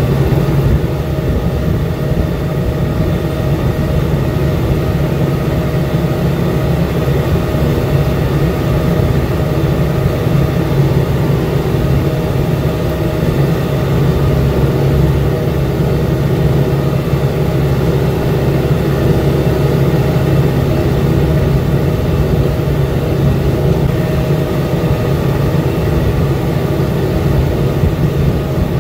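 New Holland TS6020 tractor engine running steadily under load while it pulls a corn planter, heard from inside the cab. The engine note holds even, with no rise or fall.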